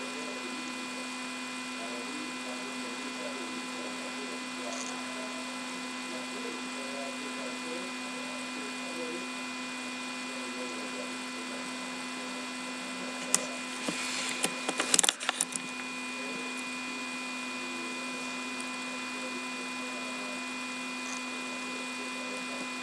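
Steady electrical hum made of several fixed tones. About thirteen seconds in comes a short cluster of sharp clicks and knocks lasting a couple of seconds, then the hum alone again.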